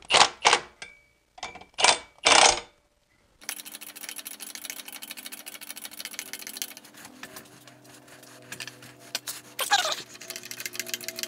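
Cordless impact wrench hammering in about five short bursts, driving the M12 bolts that hold the engine block to an engine-stand bracket. Then a quieter, continuous clattering and creaking with a faint hum, and a short falling squeal near the end.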